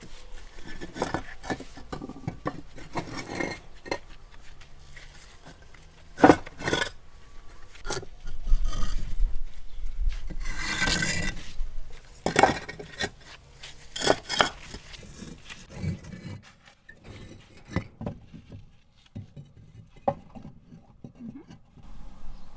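Bricks being stacked brick on brick to build a grill pit: sharp knocks as bricks are set down, and a longer scraping of brick rubbing on brick near the middle.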